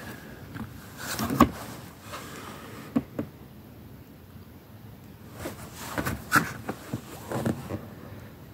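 A cardboard product box being handled and turned over by hand: scattered rustles and knocks of cardboard. The sharpest knock comes about a second and a half in, with another cluster around six seconds in.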